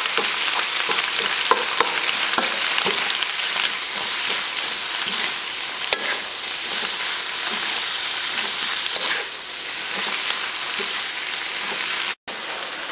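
Mixed vegetables (broccoli, cauliflower, carrot, chili) sizzling in a wok as a spatula stirs and tosses them, with a steady frying hiss and small scraping clicks of the spatula against the pan.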